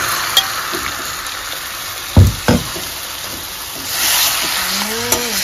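Raw chicken gizzards and livers sizzling as they go into hot mustard oil in a wok and are stirred with a metal spatula. There are two loud knocks a quarter-second apart about two seconds in, and the sizzle swells louder near the end.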